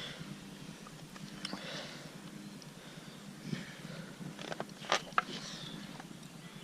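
Fillet knife cutting into a catfish just behind the rib cage: quiet, soft scraping and slicing with a few small clicks, the sharpest pair about five seconds in.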